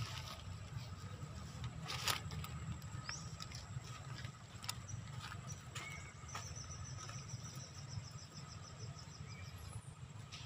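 Outdoor ambience with a steady low rumble on the microphone, a few short high chirps, and a rapid high trill of about a dozen pulses a second starting about six seconds in. A sharp rustle or knock about two seconds in is the loudest moment.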